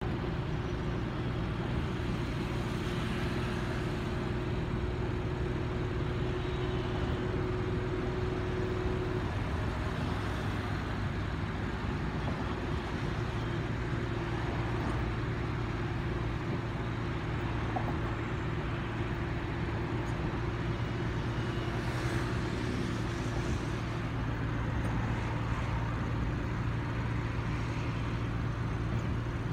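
Steady drone of engine, tyre and wind noise heard inside the cabin of a Mahindra XUV500 cruising along a highway, with a constant low hum underneath.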